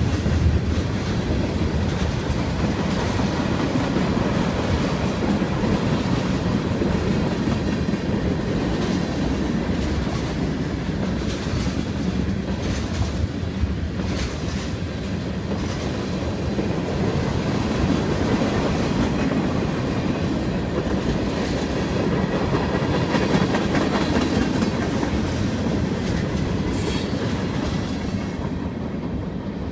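Freight train of tank cars rolling steadily past a grade crossing, steel wheels clacking over the rail joints, easing off a little near the end.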